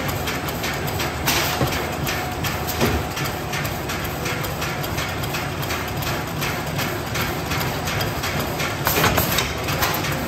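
Plastic film converting machine running: a steady low hum with a rapid regular clacking from its cutting and sealing mechanism several times a second. A few louder knocks stand out, one near the end.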